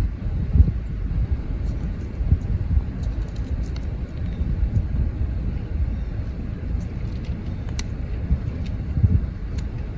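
A car driving, heard from inside: a steady low rumble with a few faint clicks.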